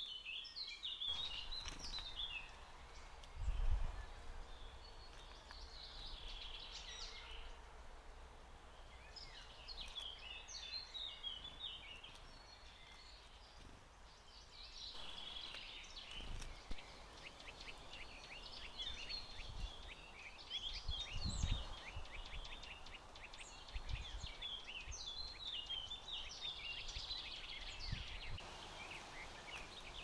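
Small songbirds chirping in repeated quick clusters of short high calls, with a few dull low thumps in between.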